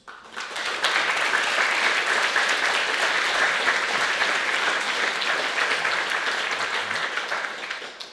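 Audience applauding, swelling within the first second, holding steady and dying away near the end.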